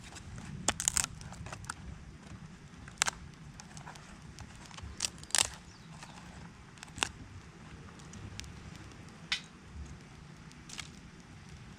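Small wood campfire crackling: irregular sharp pops and snaps, a cluster about a second in and a loud pair about five seconds in, over a low steady rumble.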